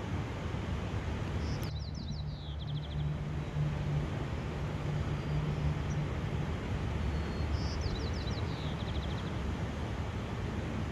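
Steady outdoor rushing background noise, with a small songbird singing a rapid descending trill twice: about two seconds in and again about eight seconds in.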